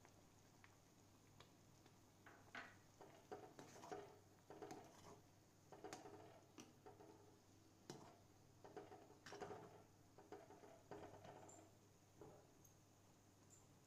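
Faint scraping and knocking of a steel spatula stirring a thick, bubbling tomato mixture in an iron pan, in uneven clusters from about two seconds in until near the end.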